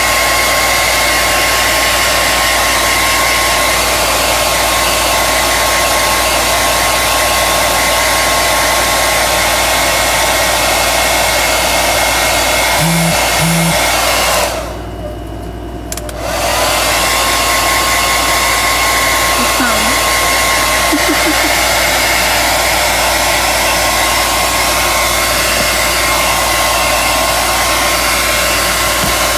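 Handheld hair dryer blowing steadily with a thin whine. About halfway through it drops off for a couple of seconds, then comes back up to full.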